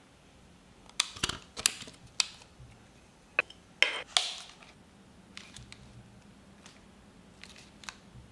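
A mirrorless camera body and its plastic body and lens caps are handled and set down on a wooden desk, giving a string of sharp knocks and clicks. The loudest come in the first half; lighter clicks follow as a lens is fitted to the camera's mount.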